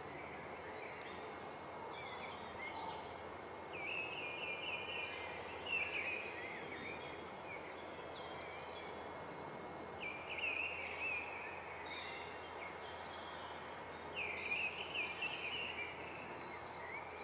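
Songbirds singing, a few short chirping phrases spaced several seconds apart, over a steady background hiss.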